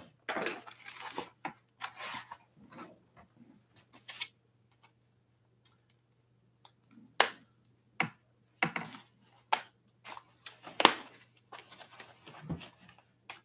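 Foam and plastic packaging rustling and scraping as it is pulled off an e-bike's fork, with a handful of sharp clicks and snaps in the second half.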